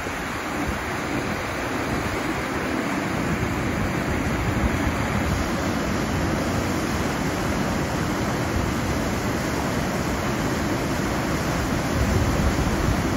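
Waterfall on the Big Sioux River: a steady rush of white water pouring over stepped quartzite ledges in high spring flow.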